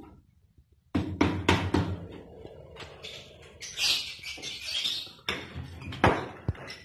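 Irregular knocks and clatters, several sharp ones about a second in and again near the end, with a scratchier, higher-pitched stretch in the middle.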